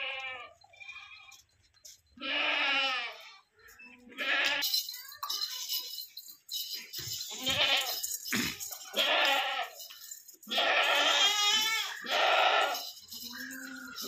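Beetal goats bleating again and again, about eight calls with a quavering, wavering pitch, some following close on one another.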